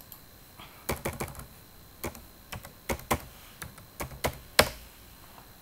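Computer keyboard typing: about a dozen irregular keystrokes, starting about a second in and ending with the loudest stroke near the end.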